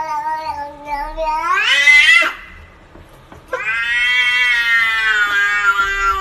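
A domestic cat giving two long, drawn-out meows: the first rises in pitch near its end, and after a short pause the second is held at a steady pitch for about three seconds.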